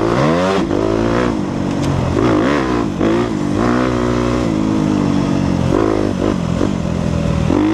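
2014 Suzuki RM-Z250 dirt bike's four-stroke single-cylinder engine revving up and down under riding throttle. It climbs sharply in the first half second, then eases off and picks up again several times.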